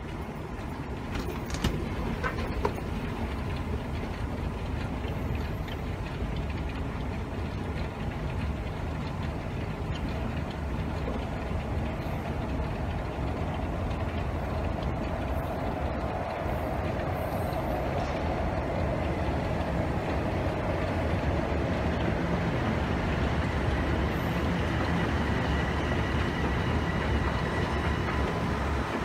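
Steady low rumble and hum of a running escalator with station machinery behind it, growing slightly louder as it goes. A few sharp clicks sound about two seconds in, and a faint high whine comes in near the end.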